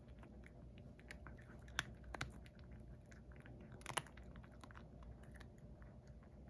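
A cat chewing and crunching a small dried sardine (niboshi): faint crisp crunches, with a few sharper ones about two seconds and four seconds in.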